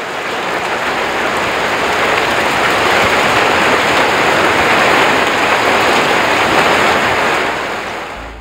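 Hail and rain falling hard on a roof, a dense steady patter that swells and then fades out near the end.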